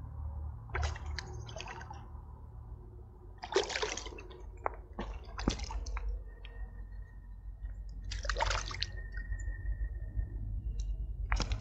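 Water splashing and dripping in about six short, separate bursts over a steady low rumble, as a freshly caught smallmouth bass is handled at the water's edge.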